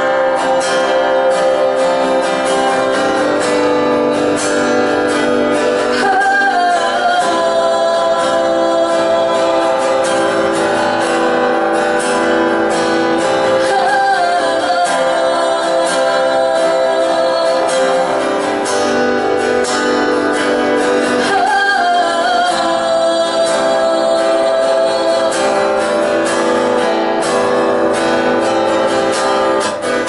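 A woman singing to her own strummed acoustic guitar, with long held notes that waver in pitch.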